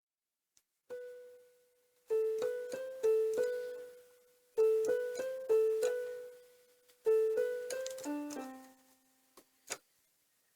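A piano-like keyboard plays a short melody of quick, struck notes. After one opening note, the same phrase comes three times, and the last ends on a lower held note. A sharp click sounds near the end.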